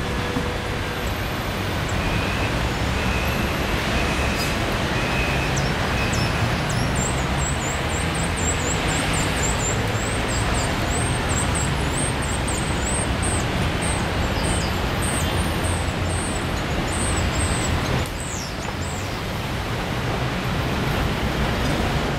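Steady city street traffic noise with a low rumble, from road vehicles and trams around tram tracks. Short high chirps sound over it for several seconds in the middle.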